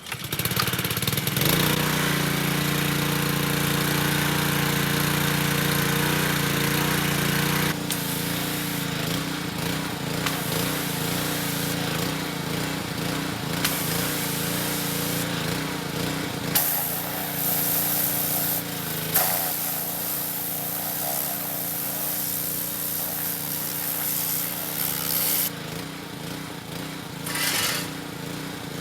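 Pressure washer running: a steady motor hum under the hiss of the water jet blasting dirt and old undercoating off a truck frame. It starts about a second in, is loudest for the first several seconds, then goes on a little quieter with the spray noise shifting.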